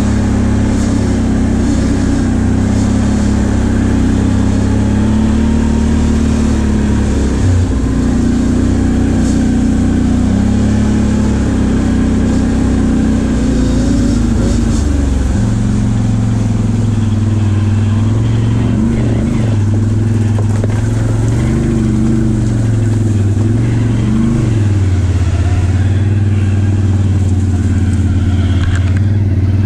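ATV engine running steadily while under way on a dirt trail, with the throttle opening and easing off several times in the second half.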